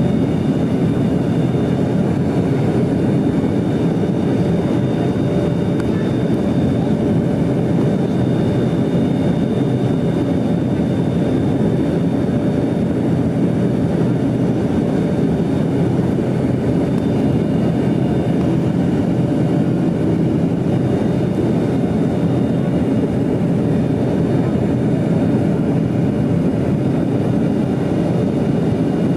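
Steady cabin noise of a Yakovlev Yak-40 jet in flight: the drone of its three rear-mounted Ivchenko AI-25 turbofans over rushing air, with a few thin steady tones running through it.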